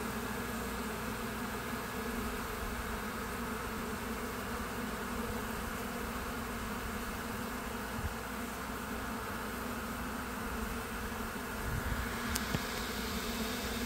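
Swarm of honey bees buzzing steadily around the entrance of a nuc box, with many bees in flight.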